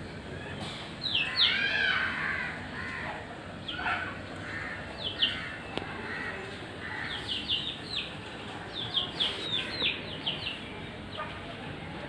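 Budgerigars chirping: many short, sharp calls, several sliding downward, coming in quick runs of three to five, with softer chatter between.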